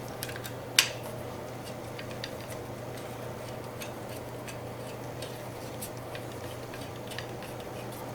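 Small metal clicks and taps as the parts of a muzzleloader's trigger assembly are handled and fitted, with one sharper click about a second in, over a steady low hum.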